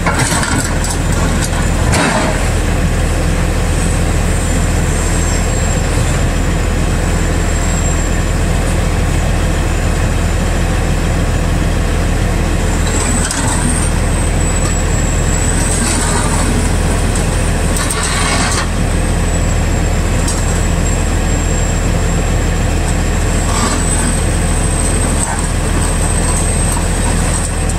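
Yutani (Kobelco) SK045 excavator's diesel engine running steadily under load as the machine tracks off the side of a lowboy trailer. A high whine wavers in pitch over the engine, and a few short clanks come from the steel tracks and the trailer deck.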